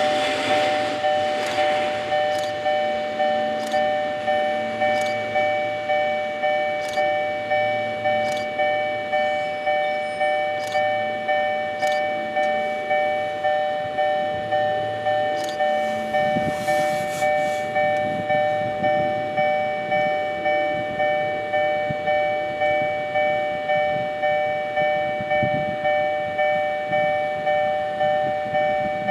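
Railway level crossing warning bell ringing steadily, a bright two-tone ding repeating a little more than once a second. A few faint clicks sound in the first ten seconds.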